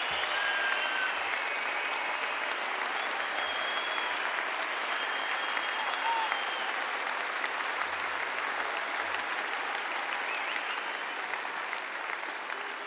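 Large concert audience applauding steadily, a dense even clatter of many hands, easing off slightly near the end.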